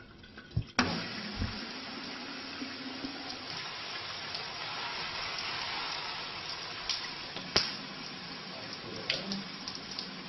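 Shower water spraying onto a tiled floor, switched on about a second in with a thud and a click, then running steadily. A sharp knock comes about seven and a half seconds in.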